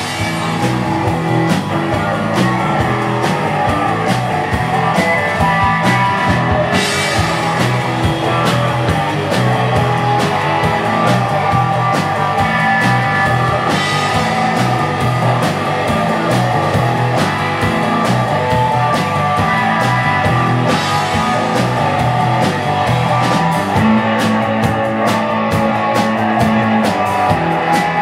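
Live rock band playing a driving groove on electric guitar, electric bass and drum kit, with steady drum hits and cymbals swelling up every several seconds.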